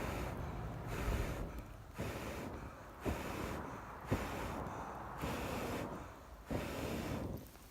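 Someone blowing steadily on a struggling campfire of damp wood to coax it alight: a run of breathy puffs, about one a second, with short pauses between them.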